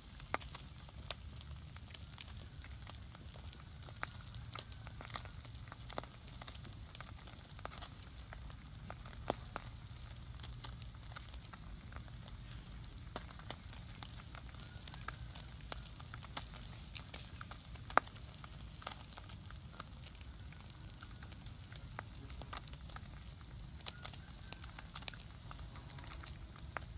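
Small wood fire crackling with scattered sharp pops over a steady hiss, as fish roast on sticks over the embers; one pop about two thirds of the way through is the loudest. A low steady rumble runs underneath.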